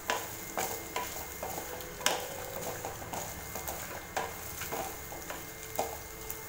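Spatula stirring and scraping in a metal kadai, with a handful of sharp knocks against the pan, the clearest about two seconds in. Grated coconut, shallots, garlic and chillies are being sautéed in a little oil with a light sizzle, until the coconut loses its raw smell.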